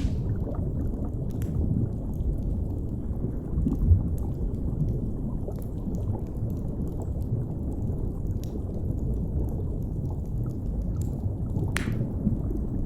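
Deep, steady underwater rumble and gurgle, with sparse wood-fire crackles and pops over it; sharper pops come right at the start and near the end.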